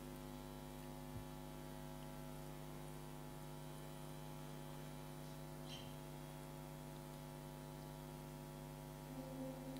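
Faint, steady electrical hum from the sound system, several held tones at once. Near the end a low tone begins to swell.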